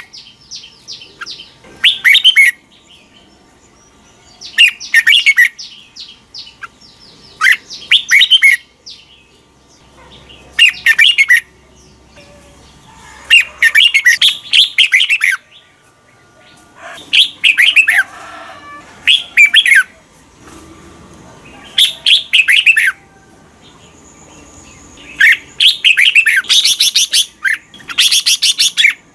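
Red-whiskered bulbul singing: short, loud phrases of quick rising and falling notes, repeated every two to three seconds with quiet gaps between, running together into a longer burst of song near the end.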